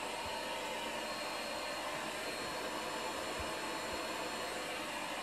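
Vacuum cleaner running steadily, an even noise with a faint hum in it.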